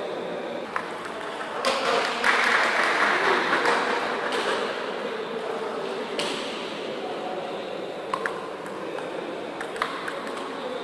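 Table tennis ball clicking sharply off the bats and table, a few hits near the end as a rally gets under way. Earlier there is a louder stretch of general hall noise.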